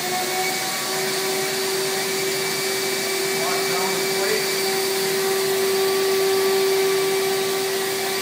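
Vacuum hold-down system of a homebuilt CNC router table, just switched on and reaching full speed in the first second, then running steadily with a rushing noise and a steady whine. It is sucking the sheet of MDF flat to the table.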